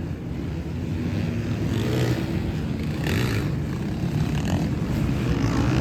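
Off-road motorcycle engines running in a beach race, the sound growing gradually louder.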